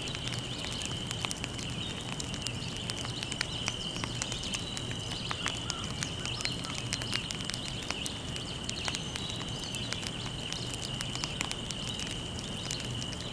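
Wood fire crackling, with many small sharp pops at irregular moments, over a steady high-pitched insect drone.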